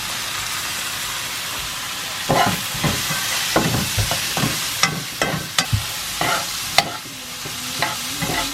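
Minced lamb sizzling in a pot, with a spoon repeatedly knocking and scraping against the pot as it is stirred from about two seconds in. The meat is being cooked to let its water and fat come out.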